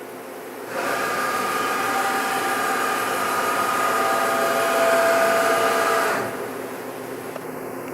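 Tree Journeyman 425 CNC vertical mill running under program: a steady motor whine with hiss comes in about a second in, holds for about five seconds, then drops back to a quieter hum.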